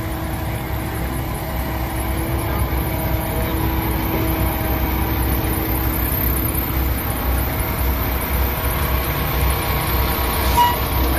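Diesel engine of a Peterbilt semi tractor idling steadily, a continuous low rumble heard from beside the cab.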